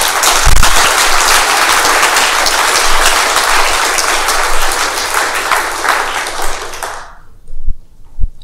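Audience applauding, fading out about seven seconds in.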